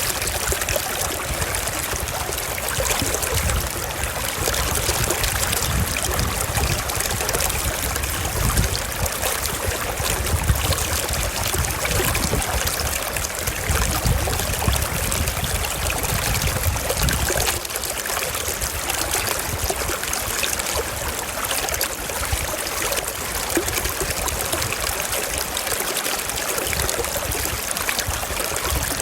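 Waterfall: water falling and rushing in a steady, even hiss. A low rumble beneath it drops away about two thirds of the way through.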